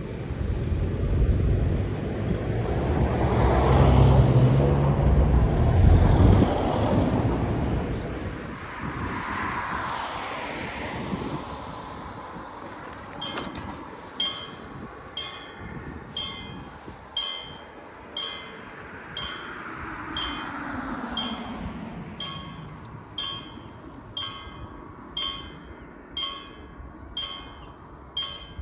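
A vehicle passes close by, loudest a few seconds in, then fades away. About twelve seconds in, a railway level crossing's warning bell starts ringing, a steady strike about once a second, and goes on; a second vehicle passes faintly midway through the ringing.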